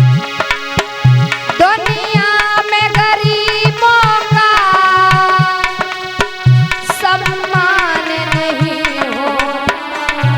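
A music interlude in Indian folk-devotional style. A hand drum keeps a steady rhythm of deep bass strokes and sharp slaps over held accompanying tones. A little over a second and a half in, a melodic line enters, sliding and bending between long held notes.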